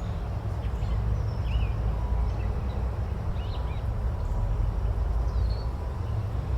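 Forest ambience: a steady low rumble with a noisy hiss over it, and faint, scattered bird chirps throughout.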